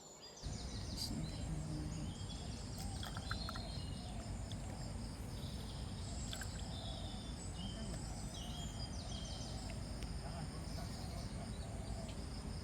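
Birds chirping in many short repeated calls over a steady low rumble of outdoor noise, with a thin, steady high-pitched insect buzz; the sounds start abruptly about half a second in.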